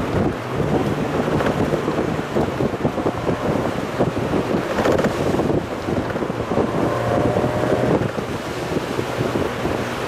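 Mazda Roadster driving, heard from on board: a steady low engine drone under heavy wind and road noise buffeting the microphone.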